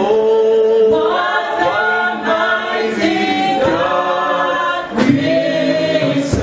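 A choir singing in long held notes that change about once a second.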